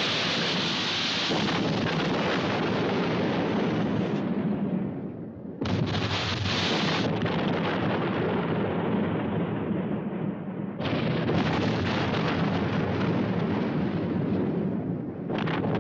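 Heavy explosions, each breaking in suddenly and rolling on into a long rumble; fresh blasts come about five and a half and eleven seconds in.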